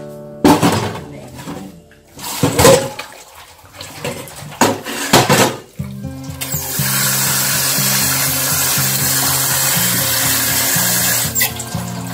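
Noodles and hot water poured from a pot into a plastic colander in a stainless-steel sink, splashing loudly several times in the first half, then a steady rush of running water into the sink for about five seconds. Background music runs underneath.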